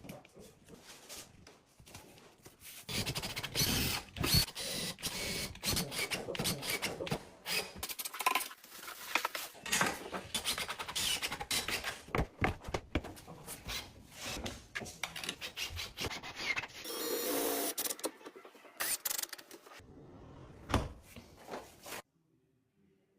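Installation work on a built-in dishwasher and its furniture front: irregular rubbing and scraping with many scattered knocks and clicks, cutting off suddenly near the end.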